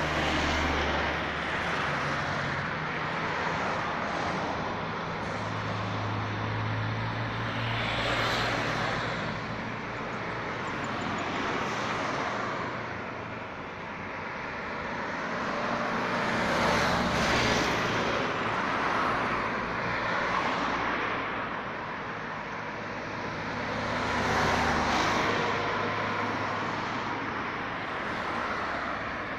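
Cars driving past one after another on a paved road, a steady wash of tyre and engine noise that swells as each car nears, loudest about eight, seventeen and twenty-five seconds in.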